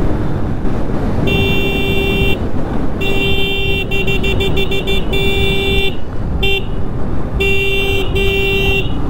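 A vehicle horn honking again and again on one steady pitch, in long blasts mixed with short quick taps, over the constant low rumble of wind and engine noise on a moving motorcycle.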